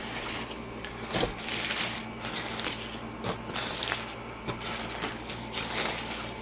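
A soft nylon carrying case being handled and rummaged through: irregular rustles, scrapes and crinkles of fabric and plastic.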